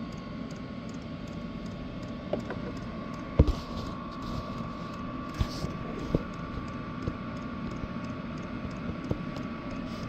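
Vevor diesel air heater running at its maximum setting, its fan hum and a thin whine climbing slowly in pitch as it spools up. A few sharp clicks come at irregular moments.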